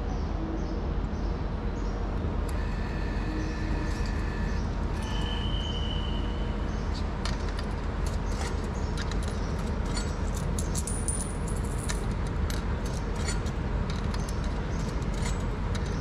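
Steady low rumble of a moving train heard from inside the car. In the first few seconds there are brief thin high whines, like wheel squeal. Light rattling clicks and jingles come through the second half.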